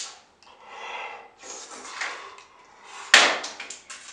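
A person hissing breaths in and out through clenched teeth, reacting to an extremely sour Warheads candy. About three seconds in there is one loud, sharp knock, followed by a few lighter clicks.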